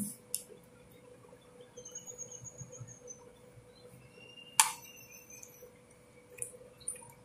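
Metal spoon clinking against a batter bowl and steel cake tin while thick cake batter is spooned in: a few light clinks, with one sharp clink a little past halfway.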